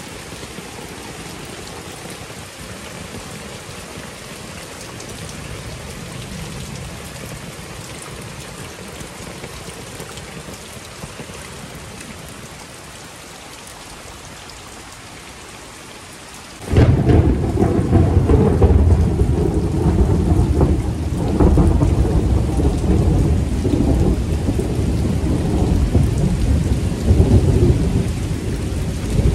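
Heavy rain falling steadily. A little over halfway through, a sudden loud clap of thunder breaks in and rolls on as a deep, uneven rumble for more than ten seconds over the rain.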